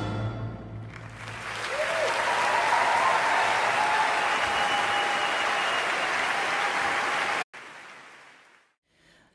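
A concert-hall audience applauding after an orchestral piece, as the orchestra's last chord dies away. The applause runs for about six seconds and then cuts off abruptly, leaving a faint fading tail.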